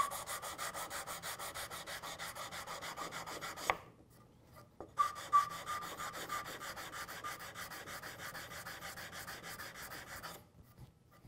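Hand sanding with a sanding block: sandpaper rubbed in quick, even back-and-forth strokes, about eight a second, across the end grain of a hardwood piece to even it out after card scraping. It runs in two bouts, about three and a half seconds, a pause of about a second, then about five more seconds.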